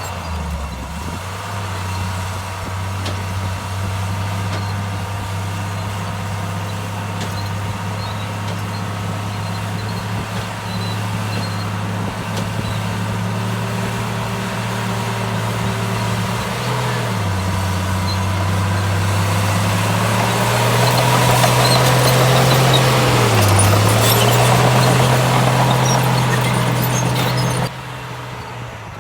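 Heavy diesel engine of an earthmoving machine running steadily, its pitch sagging briefly twice as it takes load. It grows louder with more rattle from about two-thirds of the way through, then drops off suddenly near the end.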